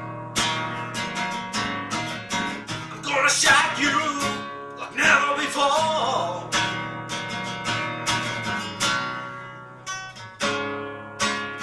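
Acoustic guitar strummed in a steady rhythm, with a brief wavering vocal line from about three to six seconds in.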